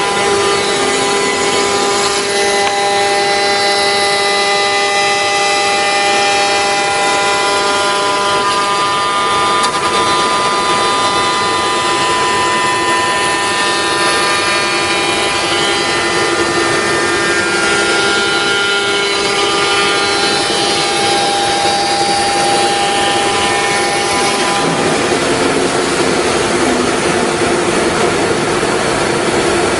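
5-axis CNC router's spindle cutting wood: a loud, continuous whine made of many steady tones over a noisy hiss, with the tones shifting a few times as the cut changes.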